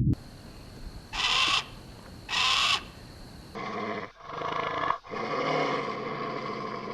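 Animal calls: two short, harsh calls about a second apart, then a longer pitched call that breaks off briefly twice.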